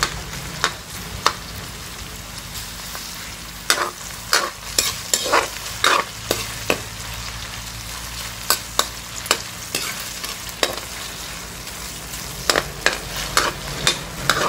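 Sliced okra sizzling steadily in hot oil in a metal wok, while a metal ladle stirs it, scraping and clinking against the pan in irregular strokes.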